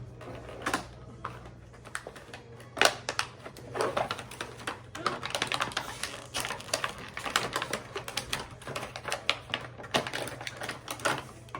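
Hard plastic clicking and rattling as toy blaster parts and packaging are handled, with one louder knock about three seconds in and a quick, irregular run of clicks in the second half.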